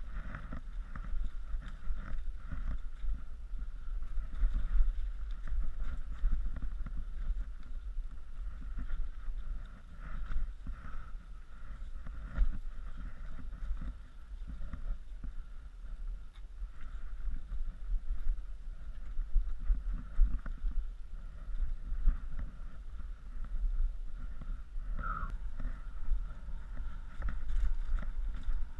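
Mountain bike riding down a bumpy, leaf-covered dirt trail, heard from a bike-mounted action camera. The microphone picks up a steady low rumble of wind and trail vibration, uneven knocks and rattles as the bike rolls over roots and stones, and a thin steady higher hum. A short squeak comes about three-quarters of the way in.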